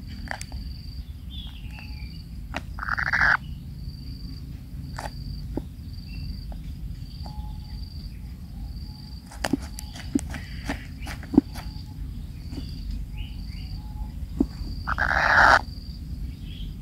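Collared kingfisher chicks in the nest giving two short, harsh rasping begging calls, each swelling in loudness, one about three seconds in and one near the end, among scattered sharp clicks. A cricket chirps in a steady pulsed rhythm throughout.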